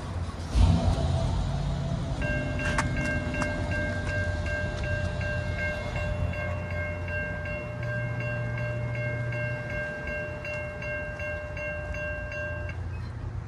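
Railroad grade crossing warning bell ringing in rapid, even strokes, just under three a second, while the crossing gate lowers; it stops about a second before the end, once the gate is down. A loud thump comes about half a second in, before the bell starts.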